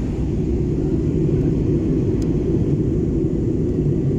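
Steady low rumble of an airliner's cabin in flight, engine and airflow noise heard from a window seat while the plane descends to land.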